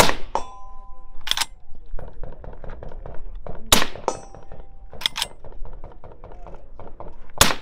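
Three shots from a suppressed Bushmaster BA30 straight-pull rifle, about three and a half seconds apart. The spring-assisted straight-pull bolt clacks as it is cycled between shots, and a brief metallic ringing follows shortly after each shot.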